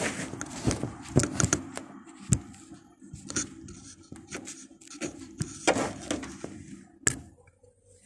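Phone-handling noise: a run of clicks, taps and scrapes as a phone is gripped and repositioned close to its microphone, with two short rustles and a sharp click near the end.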